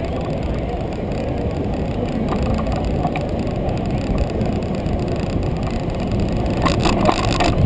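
Steady low rumble of wind and road noise on a bicycle-borne camera riding beside slow street traffic, with a brief run of sharp rattling clicks about seven seconds in.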